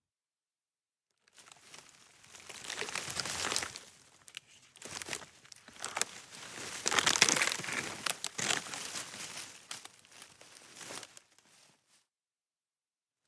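Dry wood snapping and crackling: sticks and twigs being bent and broken in two long spells of dense sharp cracks, loudest about halfway through.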